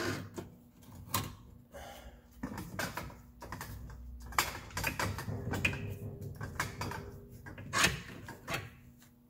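Irregular metallic knocks and clunks as the rusty rear lower control arm of a 2013 Nissan Altima is wiggled back and forth by hand to work it apart from the suspension. The sharpest clunk comes near the end.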